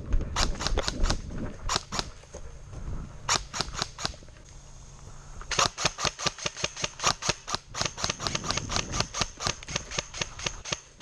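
Airsoft guns firing: a quick string of shots at the start, another short burst a few seconds in, then from about five and a half seconds in a long run of rapid shots at roughly seven a second, like sustained full-auto fire.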